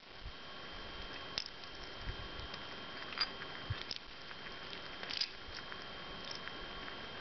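Chipmunk husking and chewing sunflower seeds close up: small, scattered clicks and crackles of seed shells, a few seconds apart.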